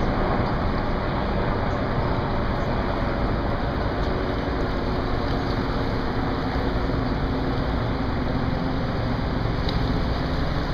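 Steady rumble of road traffic on the suspension bridge overhead, even in level with no distinct events.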